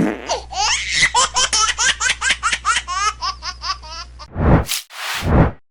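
A child's laughter: a long run of quick, high, gliding laugh syllables, about five a second, lasting some four seconds. It is followed near the end by two short swelling rushes of noise.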